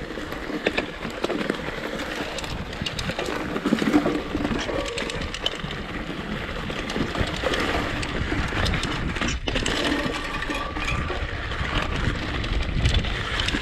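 Mountain bike riding down a dirt forest trail: a continuous rumble of tyres on dirt and pine needles, with the bike rattling and knocking over bumps.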